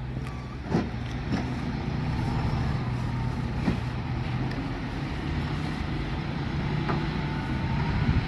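Telehandler's diesel engine running steadily, with a few sharp knocks and one short beep near the start.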